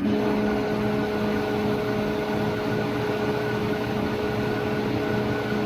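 Table saw running with a dado blade stack fitted: a steady motor hum with a constant whine over a rushing blade noise, no change in speed.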